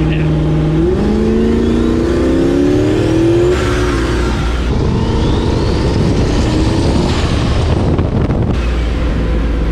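Turbocharged GMC Sierra pickup's engine accelerating hard through two gears: the engine note climbs, drops at a shift about three and a half seconds in, and climbs again, with a high turbo whistle rising during each pull. The pull ends suddenly near the end.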